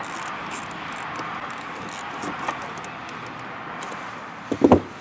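Workshop handling noise: a few light clicks, then a quick cluster of three dull knocks near the end, as the battery-cable fuse line is being worked loose. All of it sits over a steady hiss.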